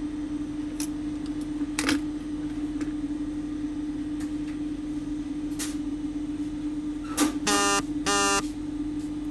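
Two short electronic beeps near the end, typical of a digital multimeter, following a few scattered clicks. A steady electrical hum runs underneath.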